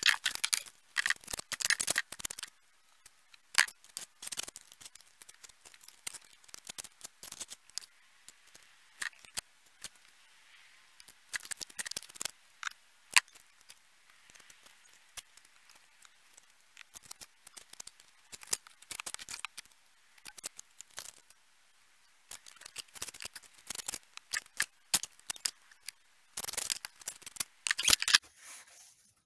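Hand work on freshly laid brick and mortar: short, irregular scratching and scraping strokes with sharp clicks, in dense runs at the start and again near the end.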